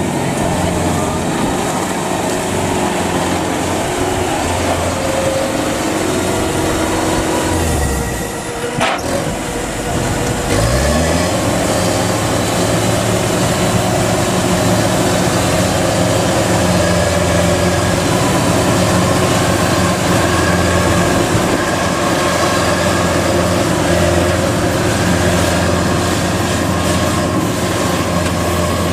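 Kubota DC93 Extra rice combine harvester running while cutting and threshing, a loud steady mechanical sound from its engine and machinery. About eight seconds in the engine sags, there is a sharp click, and it revs back up a couple of seconds later.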